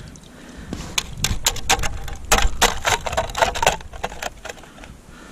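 An irregular run of sharp clicks and knocks, densest from about one to four seconds in, then thinning out.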